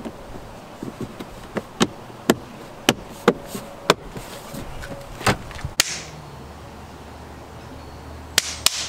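Sharp plastic clicks and taps, about a dozen at irregular intervals, as a cabin air filter is slid into its housing behind a car's glove box and the cover is clipped shut. A low steady hum comes in about six seconds in, with two more clicks near the end.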